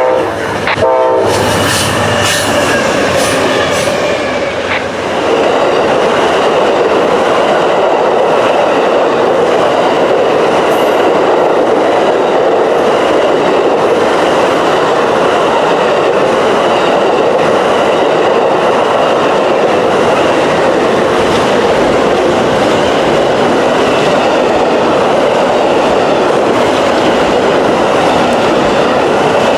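Amtrak Auto Train (train 53) passing: its horn sounds briefly at the start, then the long train rolls by with a steady rumble of wheels on rail, clickety-clack over the joints and a faint high wheel squeal.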